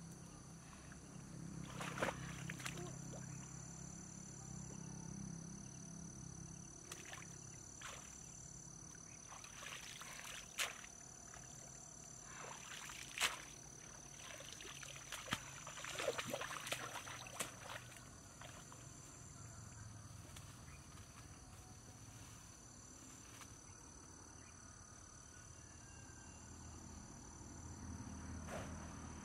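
Sloshing and splashing in shallow muddy water as woven bamboo fish traps are handled and lifted out dripping, with scattered sharp splashes and knocks, the loudest about two, ten, thirteen and sixteen seconds in.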